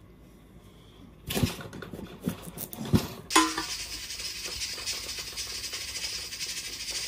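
Large kitchen knife cracking and knocking its way through a pumpkin's hard rind on a wooden cutting board, a run of sharp knocks with the loudest about three seconds in. Then the sound switches suddenly to a steady high hiss.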